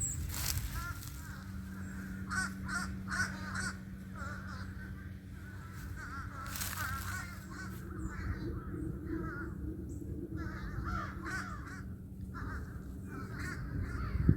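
Several American crows cawing over and over, the calls overlapping, with a steady low hum underneath.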